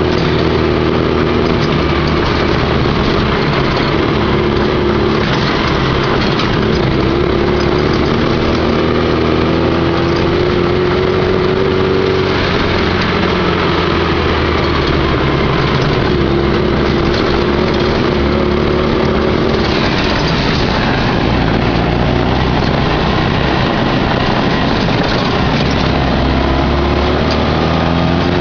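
Off-road buggy's engine running steadily as it drives along a dirt trail. Its pitch wavers gently up and down as the revs shift, over a constant hiss of wind and road noise.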